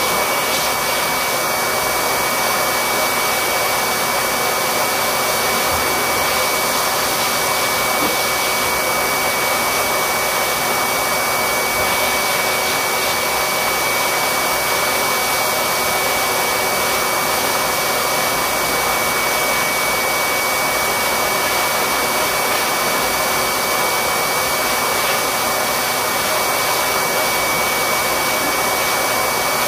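Electric air blower running steadily: an even rushing of air with a motor hum and a thin, high, unchanging tone above it.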